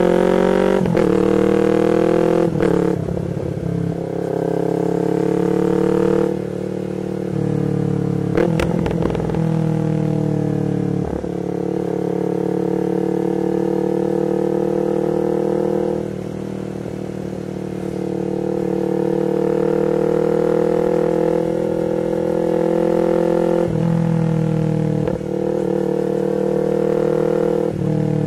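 Yamaha MT-25 parallel-twin engine through an R9 full exhaust system, under way. The engine note rises in pitch and breaks off several times as the rider shifts gears, with steadier cruising between shifts and a brief easing off of the throttle in the middle.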